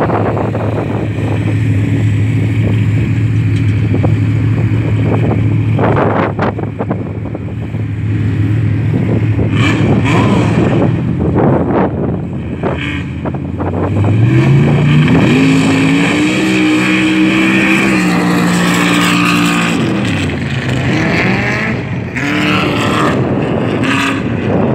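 An engine idles steadily, then revs up about fourteen seconds in, holds high for about five seconds, and drops back again.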